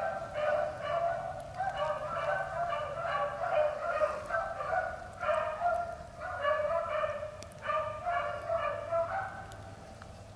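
A pack of beagles baying on a rabbit's track: many hound voices overlapping in rapid, repeated calls. The cry dies away shortly before the end.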